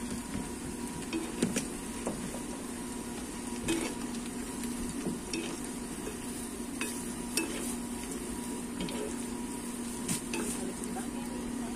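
Oil sizzling steadily as sticks of plantain deep-fry in a small wok on a portable gas stove. A metal ladle stirs them, clinking sharply against the pan a few times.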